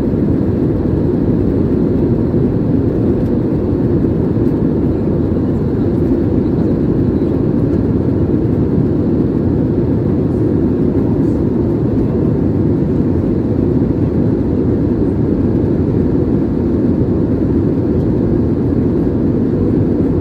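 Steady cabin noise of a jet airliner in cruise, heard from a window seat: the engines and the airflow over the fuselage make a deep, even rushing noise.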